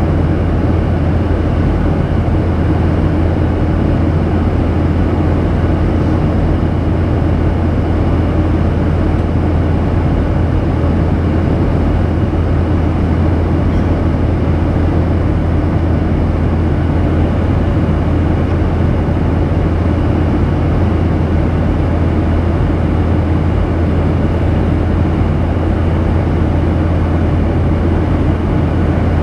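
Steady cabin noise inside a Boeing 737-800 in cruise, heard from a window seat over the wing: the drone of its CFM56-7B turbofan engines and the rush of airflow, with a strong low hum underneath.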